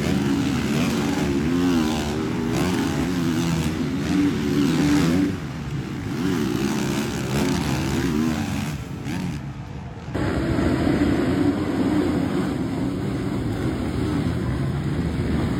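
Several motocross bikes' engines revving hard and wavering in pitch as a pack of riders races through a turn. About ten seconds in the sound cuts abruptly to another pack of dirt bikes running at high revs.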